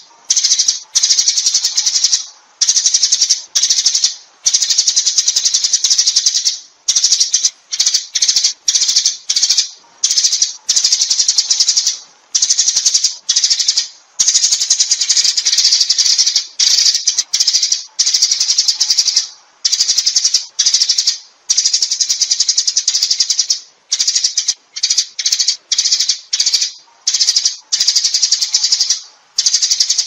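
A flock of Eurasian tree sparrows chirping and chattering, high-pitched and dense, in runs of one to two seconds broken by short pauses. This is the flock-calling chatter used as a lure to draw sparrows in.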